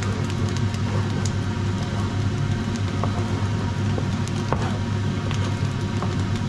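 Ground beef and bacon cooking in a pot, sizzling with scattered small pops over a steady low hum.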